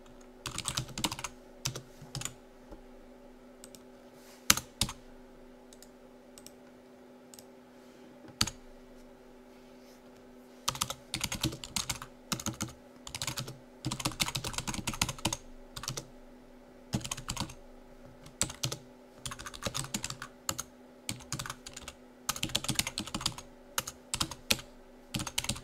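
Typing on a computer keyboard: bursts of rapid keystrokes with pauses between them, and a quieter stretch about a quarter of the way in with only a few single, louder clicks. A faint steady hum sits underneath.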